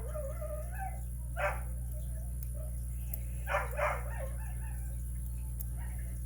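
A dog whining in a wavering pitch, breaking into short yips about a second and a half in and again around four seconds in.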